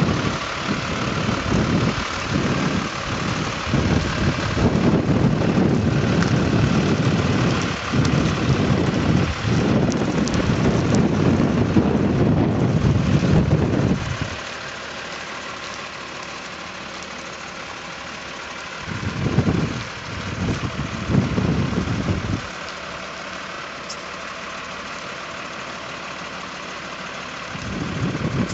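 Wind buffeting the microphone in a heavy rumble, easing about halfway through and returning in a few gusts, over the steady diesel engine of an Iveco lorry reversing at idle.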